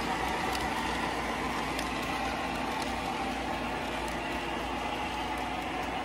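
Lionel O gauge model train running steadily on three-rail track: an even whir and rumble of wheels and motor, with a few faint clicks.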